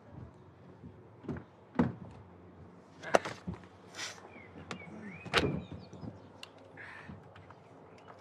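A passenger climbing into a car: the door opening and shutting, with several separate knocks and thuds as he settles onto the seat.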